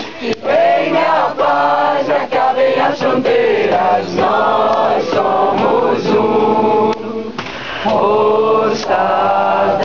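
A group of men and women singing a repeated chant together, holding long notes in short phrases.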